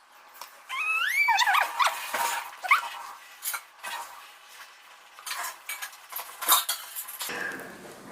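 A spoon clinking and scraping on a plate, with a few high, gliding squeaky cries about a second in.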